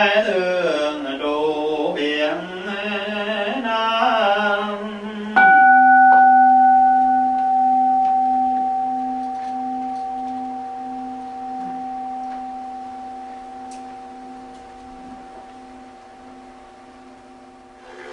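Group Buddhist chanting for about five seconds, then a single strike on a Buddhist bowl bell. The bell rings on in a steady hum of several pitches and fades slowly over more than ten seconds.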